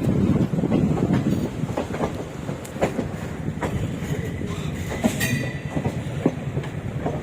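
Passenger train rolling out of a station, heard from on board: a steady rumble of the coaches with irregular clicks and clatter of the wheels over rail joints and points. A brief squeal of the wheels comes about five seconds in.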